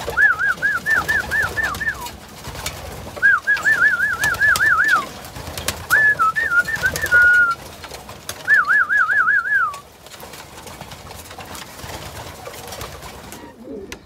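A person whistling a warbling call to coax pigeons: four separate trilled whistles, each one to two seconds long, the pitch wobbling quickly up and down about five times a second.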